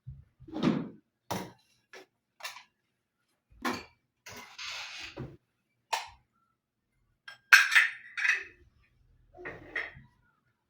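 A series of separate clicks, knocks and clinks, as of objects being picked up and set down, with a brief rustling hiss about four and a half seconds in.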